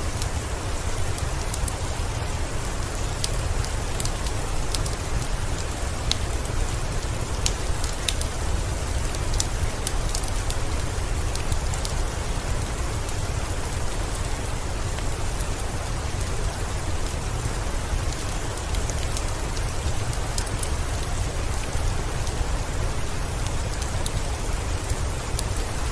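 Steady heavy rain mixed with the scattered sharp crackles of a wood fire in a fireplace, the crackles more frequent in the first half, over a low rumble.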